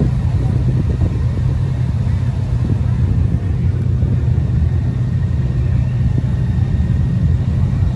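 Motorcycle engine running steadily at low speed while the bike rolls along, a deep even engine note with little change in pitch.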